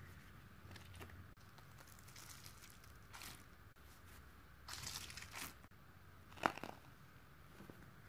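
White tissue paper being crumpled and pulled around a squishy stress ball: faint, scattered crinkling and tearing, with a louder rustle about five seconds in and a short sharp crackle just after it.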